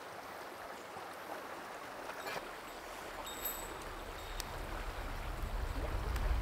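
Shallow mountain stream running over a stony bed, a steady rush of water. A few faint clicks come near the middle, and a low rumble builds over the last couple of seconds.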